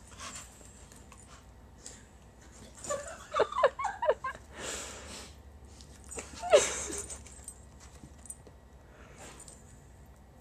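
Staffordshire Bull Terrier whimpering and yipping: a quick run of short, high, wavering whimpers about three seconds in, a breathy huff just after, then one loud yelp that falls sharply in pitch about halfway through.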